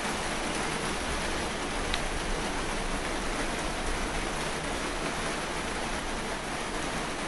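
A steady, even hiss with one faint click about two seconds in.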